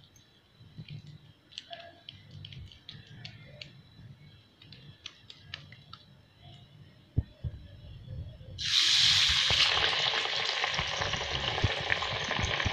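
Faint soft clicks and squishing of hands pressing chana dal vada dough into patties in a steel bowl. About two-thirds of the way through, a loud, steady sizzle starts suddenly: a dal vada deep-frying in hot oil in a kadhai.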